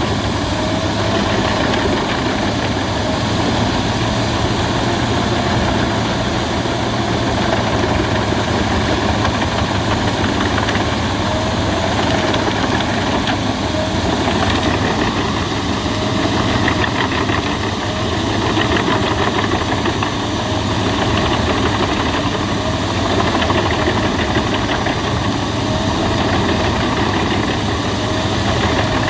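Albach Diamant 2000 wood chipper running steadily with a loud, even engine drone throughout.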